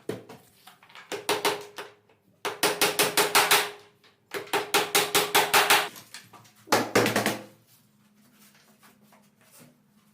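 Rapid sharp knocking in four bursts, about eight strikes a second, with a faint ringing tone under it; the bursts stop about eight seconds in.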